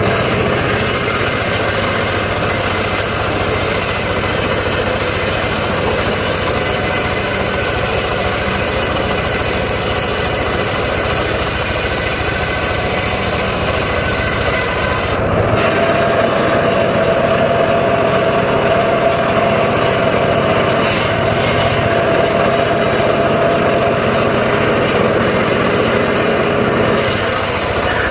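Engine-driven saw running steadily and loud, its sound changing about halfway through, when one steady tone grows stronger and the high hiss drops off.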